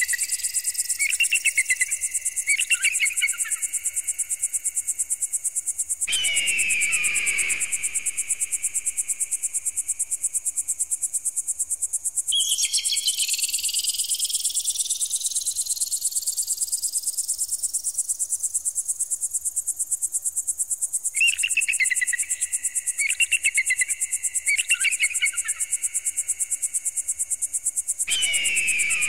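Synthesized bird-repellent sound: a constant, rapid, high-pitched pulsing with slow rising sweeps laid over it. It is broken by two groups of three short warbling bursts, near the start and again about two thirds of the way in, and by a loud falling cry at about six seconds and again near the end.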